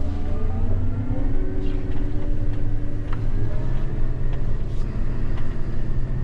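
Gleaner S98 combine running while harvesting corn, heard from inside the cab: a steady low drone with a whine that rises in pitch and steps up about three and a half seconds in.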